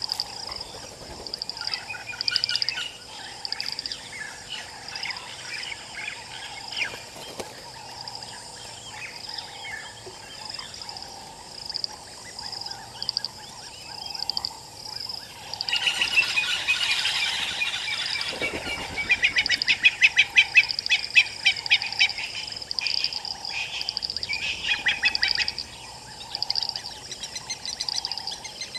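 Wild birds calling and chirping over a steady, high pulsing chorus. A little past halfway a run of rapid chattering calls starts up, and it is loudest a few seconds later.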